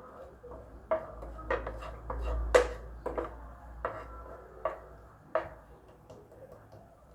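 A metal spoon knocking and scraping against a frying pan while cashews are stirred roasting in ghee: about eight sharp, irregularly spaced clinks, the loudest about two and a half seconds in.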